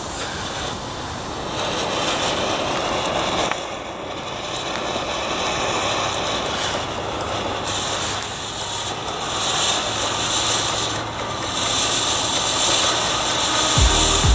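Category 1 ground-fountain firework burning: a steady rushing hiss of spraying sparks that swells and dips in strength. A thumping bass beat of music comes in near the end.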